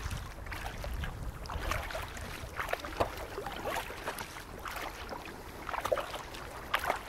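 Kayak paddle strokes: blades dipping and water splashing and dripping off them in irregular strokes about a second apart.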